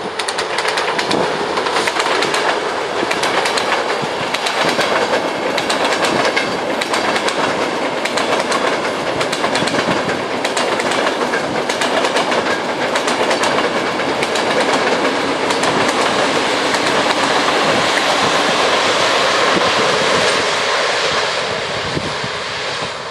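Passenger train hauled by an electric locomotive passing at speed: steady rumble and rush of the coaches with many sharp wheel clicks over the rail joints, fading near the end as the last coaches move away.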